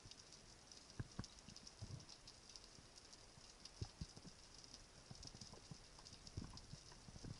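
Faint underwater ambience heard through a submerged camera: a steady fine crackling with a few soft knocks scattered through it.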